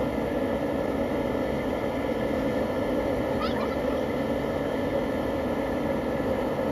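Propane jet burner of an outdoor crawfish-boil cooker running steadily under a large aluminum stockpot, an even, unbroken rushing noise. It is heating the pot of seasoned water, which has not yet come to a boil.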